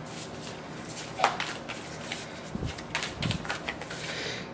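A deck of cards being shuffled and handled by hand: soft, irregular flicks and taps of card against card, one sharper snap about a second in.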